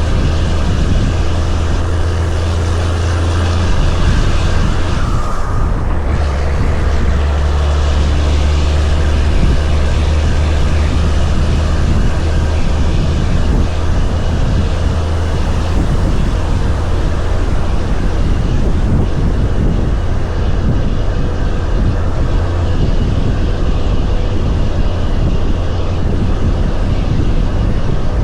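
Heavy-haul semi truck's diesel engine running steadily under a heavy load, a loud low drone with road noise over it. The higher noise dips briefly about five seconds in.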